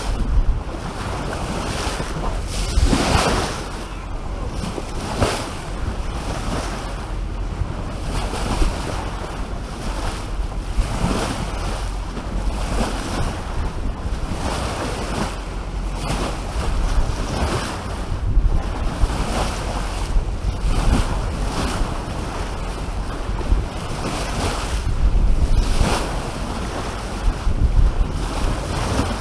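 Wind buffeting the microphone over water rushing and splashing along the hull of a sailboat under way, rising in irregular surges every few seconds.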